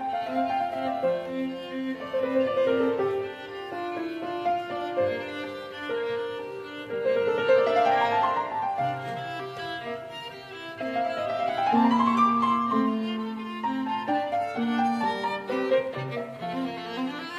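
Background instrumental music: a melody of held notes that glides up in pitch twice, about midway and about two-thirds of the way through.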